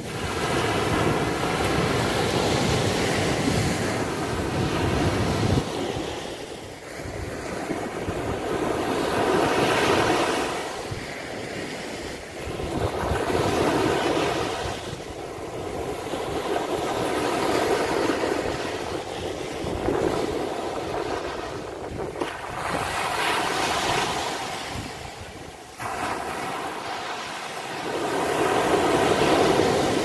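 Small Mediterranean waves breaking on a sandy beach and washing up the shore, the surf swelling and fading every few seconds.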